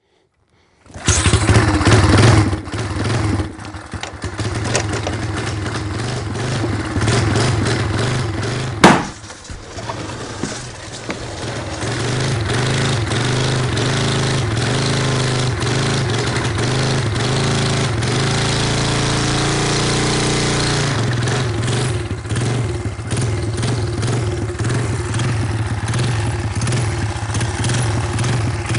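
Engine of the McLean Wheel, a one-wheeled motorcycle, running and revving unevenly, with one sharp loud crack about nine seconds in. It then runs steadily, its pitch climbing and falling back about twenty seconds in.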